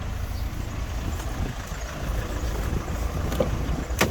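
Car engine idling as a low steady rumble, with a few faint handling clicks and one sharp click near the end as the adapter is pulled out of the tow bar socket.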